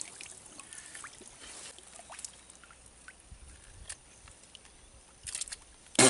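Faint lapping and trickling of shallow lagoon water around a person wading waist-deep among reeds, with a few small ticks and splashes. A sudden louder noise comes right at the end.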